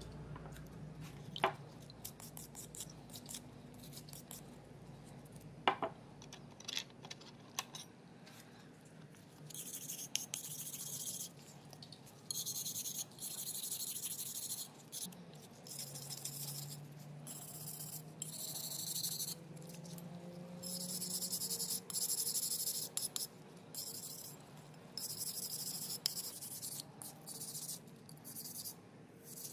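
A small brass wire brush scrubbing wet steel hand-plane parts over a glass dish: runs of quick scratchy strokes with short pauses, starting about ten seconds in. Before that, a few light clicks as the parts are handled.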